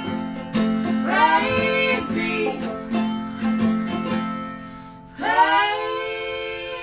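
Acoustic guitar, mandolin and banjo plucking a folk tune while three women sing in close harmony. About five seconds in, the instruments stop and the voices hold a chord unaccompanied.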